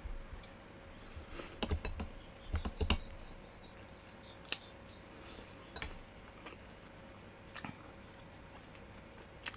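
Close-miked eating sounds of a person chewing pelmeni: an irregular run of small wet mouth clicks and smacks, busiest about one to three seconds in, then a few single ones.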